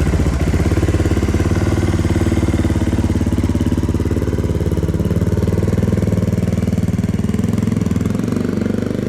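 Suzuki DR650's single-cylinder four-stroke engine idling steadily through a Screaming Demon stainless aftermarket exhaust, with an even, fast exhaust pulse; its note is much like a Staintune exhaust.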